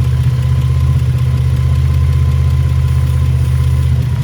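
Nissan VQ-series V6 engine idling steadily, with an exhaust leak at the header collector gasket.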